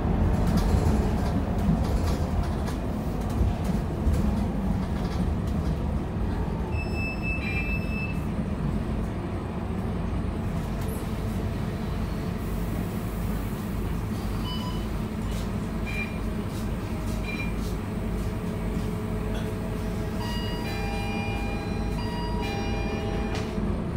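Inside the cabin of a Scania K230UB Euro 4 city bus: the rear-mounted diesel engine and road noise make a steady low rumble as the bus drives. A few brief high tones sound along the way, and near the end a cluster of high tones sounds for a few seconds.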